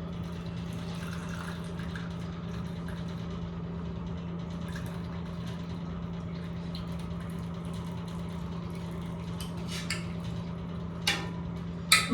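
Hot tea being strained, poured through a strainer into a cup, over a steady low hum. A few short clinks come near the end.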